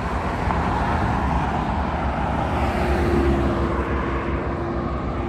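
Street traffic noise, with vehicles running by as a steady rumble. A faint steady engine hum sets in about three seconds in.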